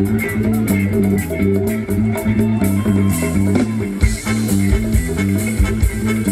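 Live band playing ramwong dance music, with a plucked guitar and a stepping bass line over a steady beat that hits harder from about four seconds in.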